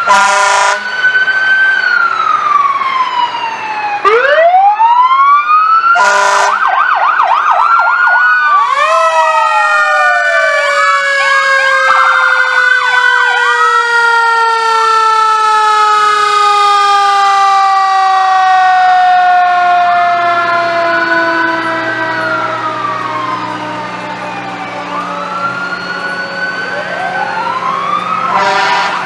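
Several fire engine and police sirens sounding at once as the vehicles pass, overlapping wails and fast yelps, with one siren winding slowly down in pitch through the middle. Short horn blasts come near the start, about six seconds in, and near the end.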